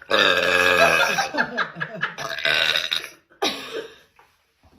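A woman's long, loud burp lasting about three seconds, then a shorter second sound about three and a half seconds in.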